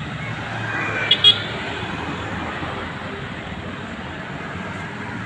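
Steady city street traffic passing, with two quick vehicle-horn toots about a second in.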